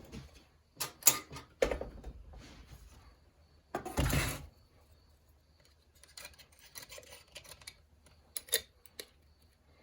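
Hand-handling noises of chainsaw parts and tools: scattered clicks and knocks, a short scraping rattle about four seconds in, then soft rustling and a couple more clicks near the end.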